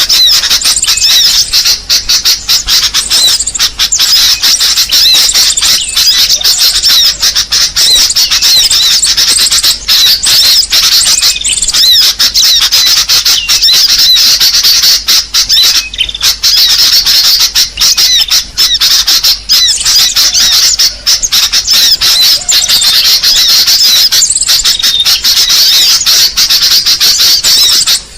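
Dense, continuous chattering and squawking of many small birds, rapid high chirps overlapping without a break, as in a bird-luring (pikat) call recording.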